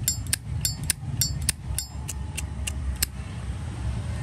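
Zippo lighter lid flicked open and snapped shut again and again, about three sharp metallic clicks a second, some with a bright ringing ping. The clicking stops about three seconds in. A steady low rumble continues underneath.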